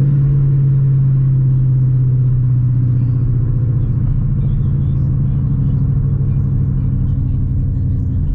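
Straight-piped 2018 Ford Mustang GT's 5.0 V8 heard from inside the cabin, cruising with a steady low exhaust drone that holds one pitch.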